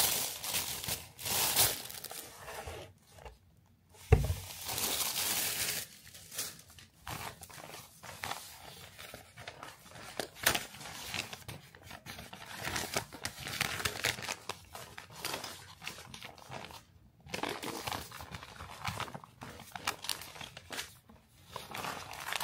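Packaging being crinkled and torn open in irregular bursts of rustling, with a sharp knock about four seconds in.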